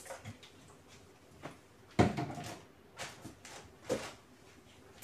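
Small objects being picked up and set down on a TV cabinet top while it is wiped with a cloth: a few separate light knocks and clatters, the loudest about two seconds in.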